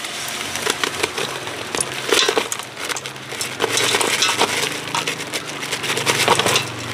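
Ice chunks being worked out of a plastic bag into an aluminium pot: the bag crackling, with irregular clinks and knocks of ice against the pot and against each other.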